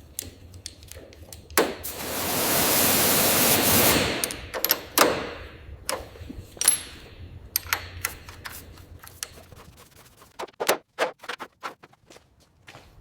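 A hiss of spray lasting about two seconds, among a string of light clicks and knocks from parts being handled and worked on. The clicks grow sparser toward the end.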